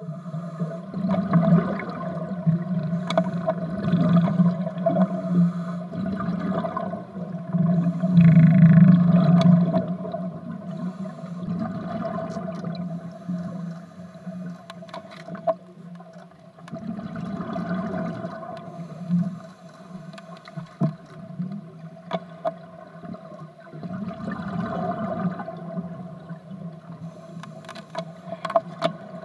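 Underwater sound: surges of bubbling, rushing water every few seconds over a steady low hum, with scattered clicks.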